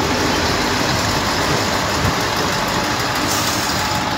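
V/Line Sprinter diesel railcars passing close by at speed, a steady loud rush of engines and wheels running on the rails.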